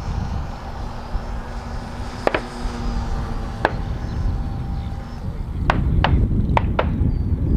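Distant gunshots from a gun-club range: two single sharp cracks a little over a second apart, then a quick run of four shots about two seconds later. Under them is a steady low rumble that grows louder partway through, and a faint steady hum that stops a little after halfway.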